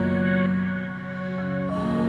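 Ambient background music of long, held chords, moving to a new chord near the end.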